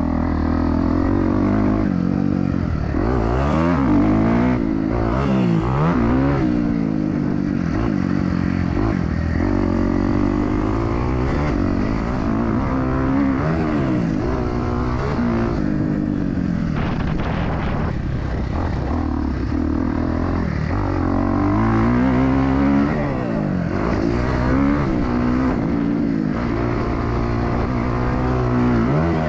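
Motocross dirt bike engine under hard throttle on the track, its pitch repeatedly climbing as it revs up, then dropping every second or two as the throttle is rolled off and gears change.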